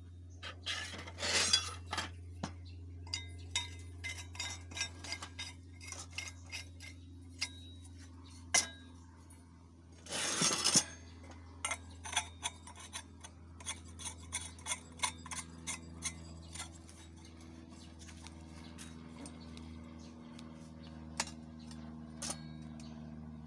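Steel parts of a used-oil stove clinking and knocking against each other and against a steel workbench as threaded pipe legs are fitted to the welded burner body. There are two short scraping rasps, one about a second in and one near the middle, and the knocks thin out over the last few seconds.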